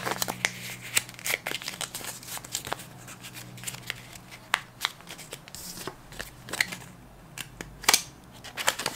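Paper banknotes (US twenty-dollar bills) handled, folded and tucked into a small envelope: irregular crisp rustles and paper snaps, the sharpest one near the end.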